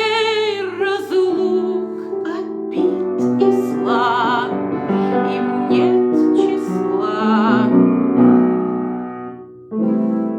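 Music: piano accompaniment under a melody held on long notes with vibrato, with a brief dip in loudness near the end before it picks up again.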